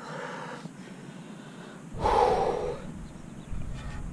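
A person breathing out heavily, in a few short noisy breaths, the loudest about two seconds in.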